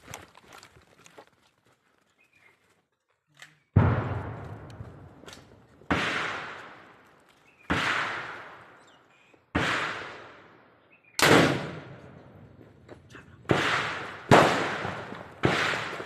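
Single rifle shots fired one at a time, eight of them starting about four seconds in and spaced a second or two apart. Each has a sharp crack and a long echo that fades over a second or so.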